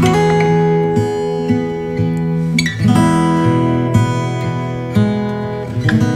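Background music: an acoustic guitar strumming chords, with a new strum about every second.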